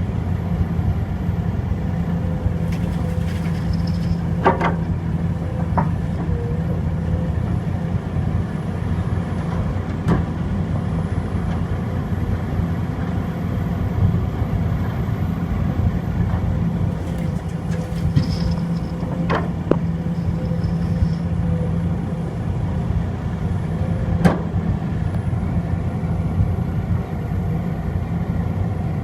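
Heavy diesel engines of an excavator and dump trucks running steadily, with a few sharp clanks several seconds apart.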